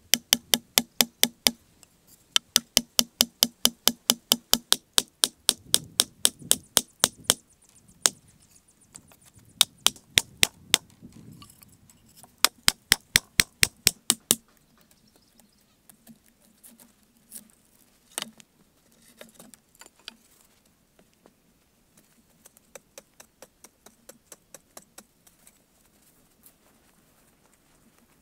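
Wooden club pounding wooden stakes into the ground, sharp wood-on-wood knocks about four a second in several runs. After about halfway only fainter, scattered knocks remain.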